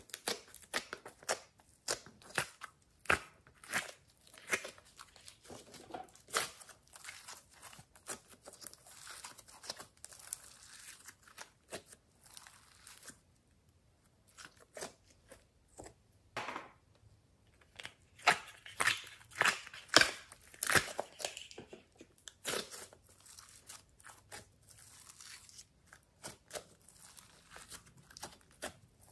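Glossy slime being squeezed, pulled and kneaded by hand, giving irregular sticky crackles and pops as air pockets burst. The pops come in bursts with short pauses, the loudest run about two-thirds of the way through.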